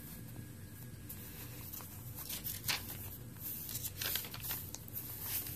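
Paper pages of a handmade junk journal being turned and handled by hand: soft paper rustles, with a few brisker page flicks in the second half.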